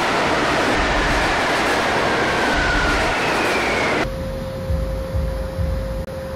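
Subway train running, a loud rush and rumble with a faint high squeal sliding slowly down in pitch. About four seconds in it cuts off abruptly to a quieter low rumble with a steady humming tone.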